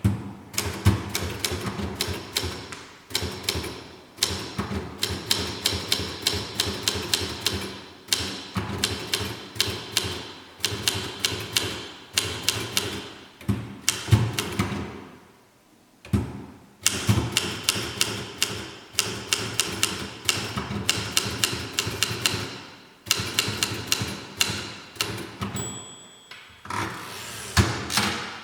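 Manual type-bar typewriter made by VEB Olympia Büromaschinenwerk in the 1960s, typed in fast runs of sharp keystroke clacks with short pauses between the runs.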